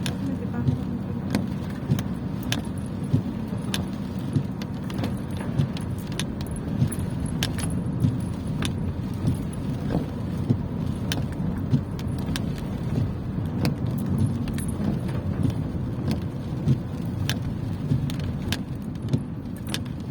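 Car driving: a steady low rumble of road and engine noise, with irregular sharp ticks or rattles over it, about one or two a second.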